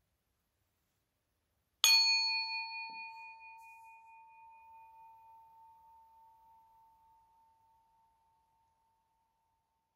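A meditation bell struck once about two seconds in, ringing a clear tone with higher overtones that pulses slightly as it fades out over about six seconds, marking the close of the sitting after the closing chant of peace.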